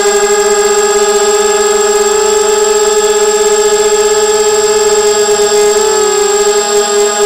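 The brushless motors and 5-inch props of a ZMR250 FPV quadcopter whining steadily, picked up close by the onboard camera. The pitch wavers briefly about six seconds in.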